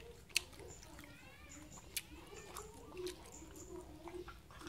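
Dog eating scraps of grilled pork off the floor: quiet chewing with a few sharp clicks of its teeth, under faint voices.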